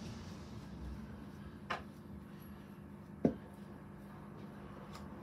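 Quiet steady low hum, broken by two short knocks about a second and a half apart, the second louder.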